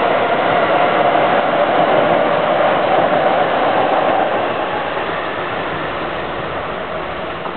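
Keihan electric trains running past, a steady rolling rush of wheels on rail that fades from about halfway through as the red-and-yellow Keihan 3000 series train draws away.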